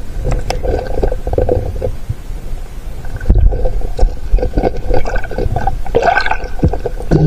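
Water gurgling and sloshing against a submerged camera, muffled, with many short knocks and clicks as a wire-mesh fish trap (bukatot) is handled under water. The loudest knocks come about three seconds in.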